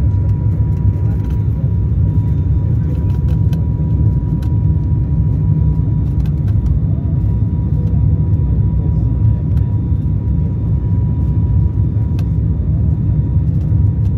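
Steady drone of a turboprop airliner heard inside the cabin on the landing approach: a dense low rumble of engines and airflow with a constant thin tone running above it.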